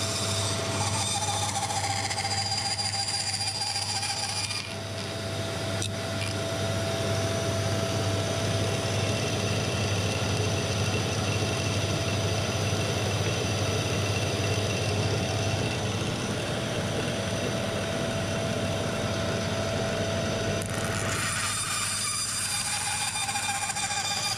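A bench bandsaw running steadily, its blade cutting a curve through a wooden board with a constant hum and a thin whine. The sound shifts abruptly about four and a half seconds in and again near the end.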